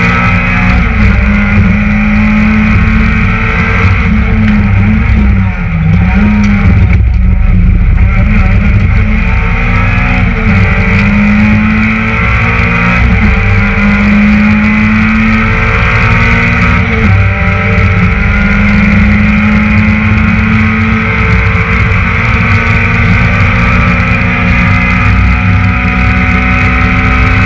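Citroën Saxo VTS rally car's four-cylinder engine heard from inside the cabin, revving hard and changing pitch as it works up and down through the gears. The loudness dips briefly about five and a half seconds in.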